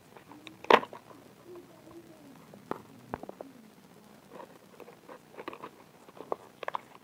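Clear plastic blister packaging handled and pried open by hand: scattered clicks and crackles of stiff plastic, the loudest just under a second in and a quick cluster near the end.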